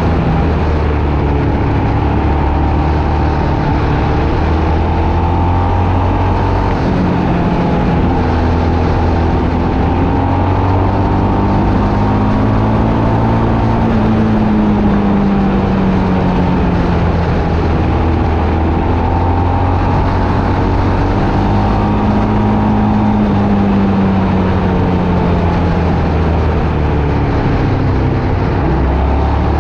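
Motor vehicle engine running steadily under way, its note slowly rising and falling several times as the revs change, over a constant road noise.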